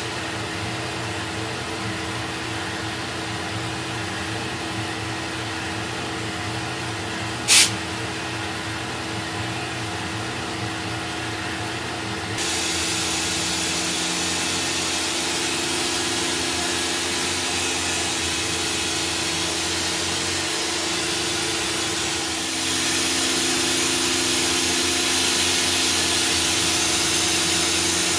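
Tormach 1100 CNC mill spindle at 5,100 RPM driving a 1/4-inch three-flute carbide end mill through a metal plate on a vacuum fixture plate: a steady machining hum with a held tone, broken by two sharp clicks, one at the start and one about seven seconds in. About twelve seconds in a loud, even hiss from a compressed-air blow gun joins the cut, and near the end a second, lower tone comes in with it.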